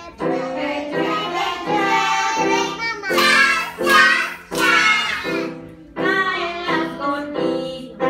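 A group of young children singing a song together, in short phrases, loudest about three to five seconds in.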